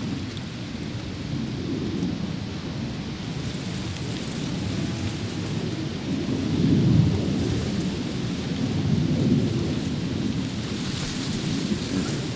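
Wind buffeting the microphone: a low rumble that swells and eases, gusting loudest about seven seconds in and again a couple of seconds later.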